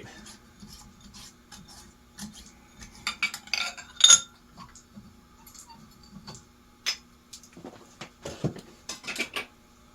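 Small metal parts and tools clinking and clicking irregularly while ceiling fan parts are being assembled, with the loudest clink about four seconds in. A faint steady hum runs underneath.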